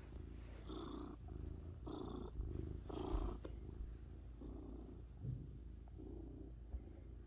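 Domestic cat purring steadily at close range, the purr swelling and easing in a slow rhythm of breaths about once a second.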